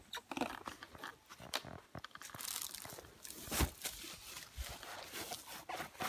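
Woven plastic sack rustling and crinkling as whole squashes are handled and loaded into it, with scattered light knocks and one heavier thud about three and a half seconds in.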